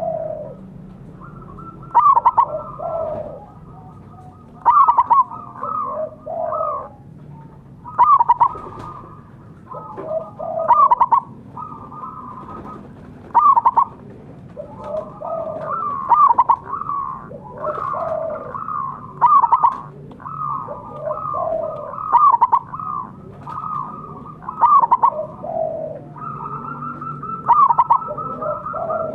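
Zebra dove (perkutut) singing: phrases of quick cooing notes, each opening with a loud note, repeated about every three seconds.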